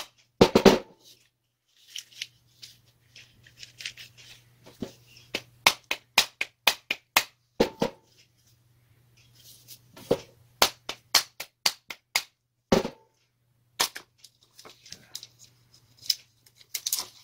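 Irregular sharp taps and knocks, with a few heavier thuds, as the stator is tapped and worked loose from an angle grinder's metal housing with a rubber mallet and by hand.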